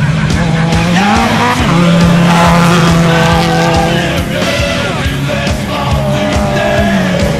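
Rock music with a steady beat mixed with a race vehicle's engine running and revving, pitch rising and falling about a second in and again near the end.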